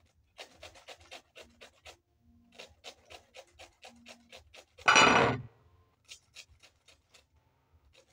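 Lemon rind being grated on a flat handheld metal grater: quick rasping strokes, about six a second, in short runs with brief pauses. About five seconds in comes one loud half-second rush of noise.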